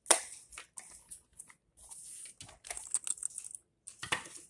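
Small cardboard blind-box toy package being handled for opening: a sharp tap right at the start, then irregular crinkling and rustling of the packaging in the hands.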